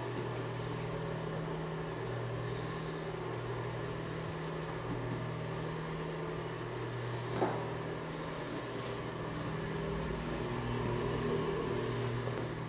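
Steady low mechanical hum with a few held tones, with a single click about seven seconds in.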